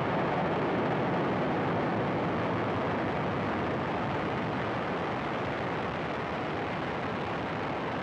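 Falcon 9 rocket's nine Merlin engines at full thrust just after liftoff: a steady, dense wash of exhaust noise that fades a little as the rocket climbs.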